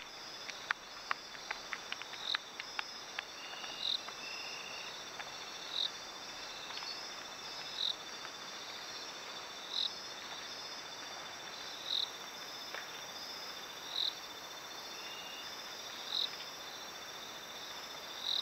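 Night chorus of rainforest insects and frogs: a steady high trill, with a short high call repeating about every two seconds. A quick run of faint clicks comes in the first three seconds.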